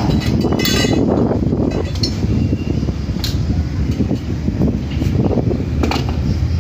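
Metal satellite-dish parts, the feed support rods and small brackets, clinking against each other as they are picked up and handled: a few separate clinks, one with a short ring about half a second in. A steady low rumble runs underneath.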